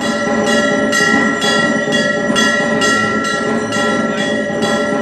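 Puja bells ringing continuously during worship at a Kali temple, struck in a steady rhythm about two to three times a second.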